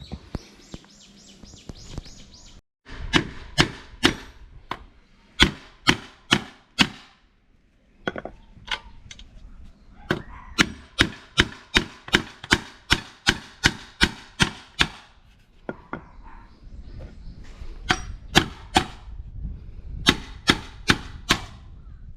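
Hammer blows on metal, sharp and ringing, struck in bursts of several at a time, about three a second at the fastest, as parts of a camper's rear wheel hub are knocked loose for a wheel bearing replacement. A short hiss comes in the first two seconds.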